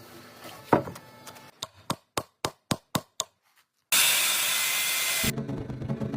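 Woodworking on wood: a knock, then a run of sharp taps about four a second that fade away, then a loud hiss lasting about a second and a half that cuts off abruptly, with background music coming in near the end.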